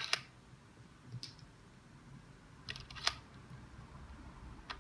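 Metal pellet shells clicking into the chambers of a Dan Wesson ASG revolver's steel cylinder as it is loaded by hand: a few sharp, scattered clicks, the loudest about three seconds in.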